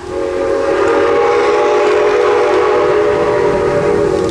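Steam whistle of the 0-6-0 steam locomotive #7470 sounding one long blast of about four seconds, several notes at once, starting abruptly.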